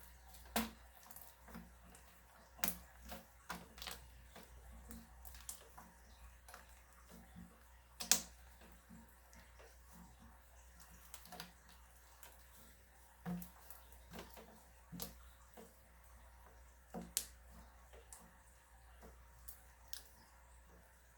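Slime being squeezed and worked by hand, giving irregular sticky clicks and pops, the sharpest about eight seconds in.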